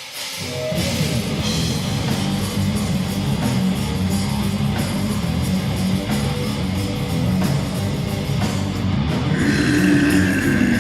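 A live rock band starts playing about half a second in: loud electric guitar and a drum kit in a heavy rock song, with regular drum hits.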